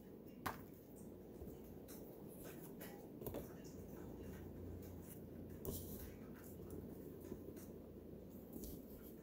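Faint rustles and scattered light clicks of a paper lottery scratch-off ticket being handled, slid across a plastic clipboard and tucked under its clip.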